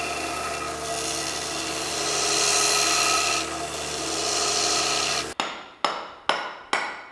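Power grinder running steadily against steel, a continuous rasping grind over a motor hum, which cuts off suddenly about five seconds in. Sharp ringing strikes follow, about two a second.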